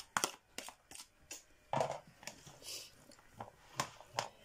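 Chopped boiled egg scraped off a plastic cutting board into a plastic bowl of diced salad, then a hand mixing the salad: scattered light taps and clicks with short soft scrapes.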